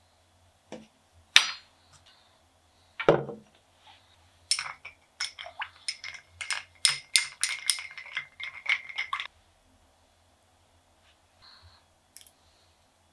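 Glass, ice and bottles clinking as a cocktail is built in a crystal tumbler. First a sharp ringing clink and a heavy knock of a bottle set down on the wooden bar. Then comes a run of quick glassy clinks for about five seconds, and near the end a couple of light ticks as coffee beans go onto the ice.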